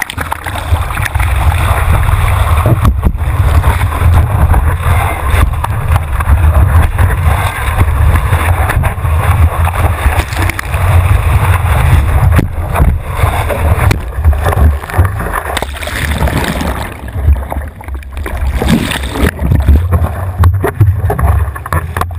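Water rushing and splashing over a surfboard-mounted action camera while surfing a wave, with a heavy, continuous low rumble of water and wind buffeting the camera.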